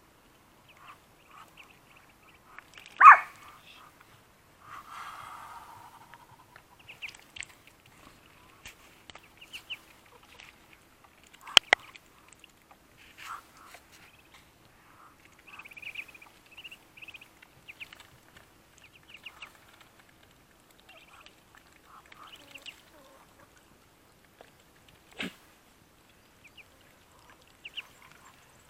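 Scattered short calls from a flock of feeding poultry, chiefly Muscovy ducklings peeping, among hens and adult Muscovy ducks. A few sharper sounds stand out, the loudest about three seconds in and another about twelve seconds in.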